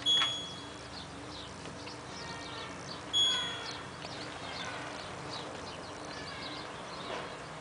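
Control panel of an LG F1222TD washing machine beeping twice, about three seconds apart, as buttons are pressed to set the options. Faint bird chirps come through in the background.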